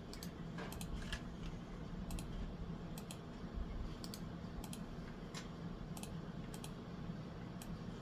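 Hunter Comfort Breeze 36-inch ceiling fan running, its motor giving a steady low hum. Sharp clicks, often in pairs, come through it about once a second.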